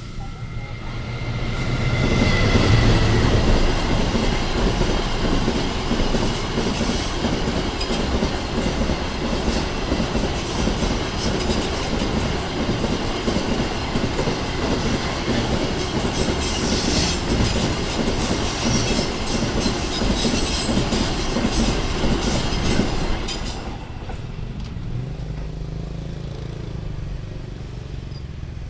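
Train passing over a level crossing: the rumble and clatter of its wheels build up over the first two seconds and hold for about twenty seconds. It then drops off sharply, leaving quieter road traffic.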